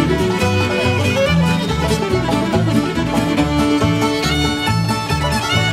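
Acoustic string band playing an old-time fiddle tune: the fiddle carries the melody over an upright bass walking a steady beat and strummed acoustic guitar.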